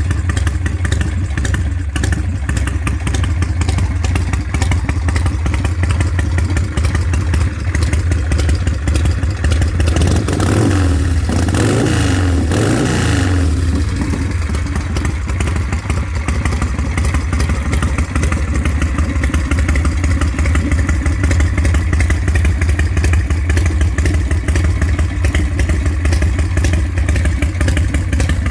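A 1978 Harley-Davidson Super Glide's 96-cubic-inch big-bore Shovelhead V-twin idles through drag pipes with a lumpy, uneven beat from its 560 cam. About ten seconds in, the throttle is blipped a few times over roughly three seconds, the pitch rising and falling, and then it settles back to idle.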